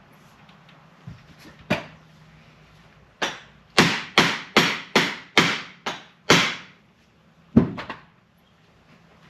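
PVC pipe slid over a Harley-Davidson fork tube, slammed down repeatedly to drive the bushing spacer and bushing into the fork slider: sharp knocks, each with a short ringing tail. Two come singly, then a quick run of about eight at roughly two a second, then two more near the end.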